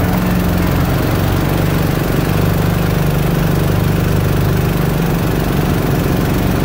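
Single-cylinder small gas engine driving a jon boat's mud motor, running at a steady speed with an even, unchanging note.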